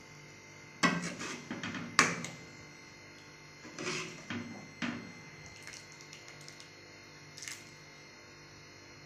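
Metal ladle stirring chicken curry in a metal kadai, knocking and scraping against the pan several times; the sharpest knocks come about one and two seconds in.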